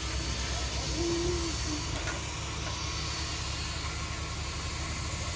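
Steady engine-like rumble with a hiss over it, with a short faint tone about a second in.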